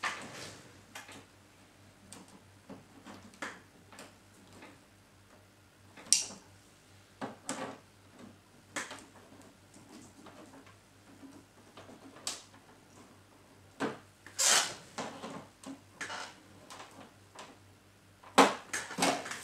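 Scattered clicks and knocks of coffee machine parts being handled and fitted, at irregular intervals, with a louder knock about fourteen seconds in.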